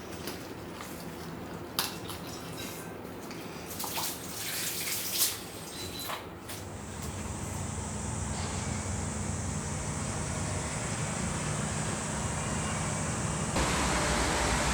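Kitchen work: scattered clicks and knocks of utensils and dishes, with a short splash of water. Then a steady rushing noise starts, like tap water running into a sink, and grows louder near the end.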